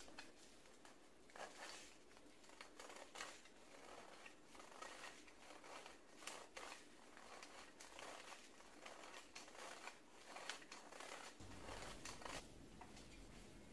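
Hand-crank metal flour sifter being cranked, its agitator wires scraping over the mesh in a faint run of quick, irregular scratchy rasps and clicks that stops near the end.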